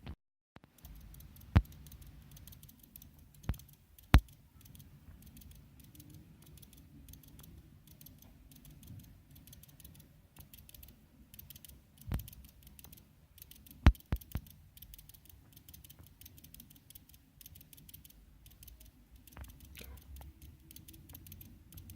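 Xiaomi Redmi Note 4 smartphone making a weird noise: a fast, faint, high-pitched ticking that keeps on, a sign of a fault the owner can't explain. A few louder sharp clicks stand out, three in quick succession about two-thirds of the way in.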